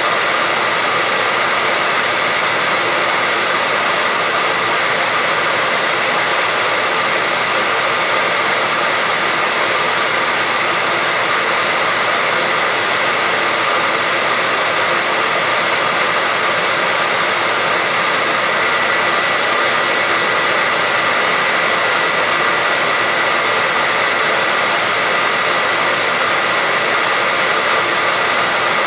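Hair dryer running steadily: a constant airy rush with a high whine from the motor and fan.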